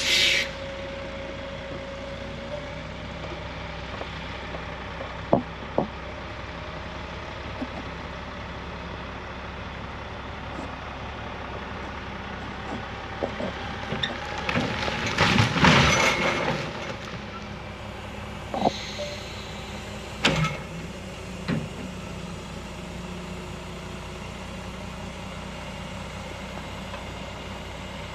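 Excavator engine running steadily, with sharp knocks now and then and a louder crashing, clattering stretch about halfway through as it works trees.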